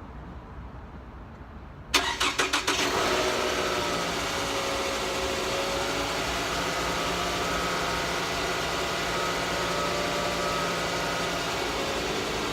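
Toyota Estima (50 series) engine starting: the starter cranks in a brief run of pulses about two seconds in, the engine catches within a second, and it settles into a steady idle, its pitch easing slightly lower. The owner says it starts and runs with no abnormal noise.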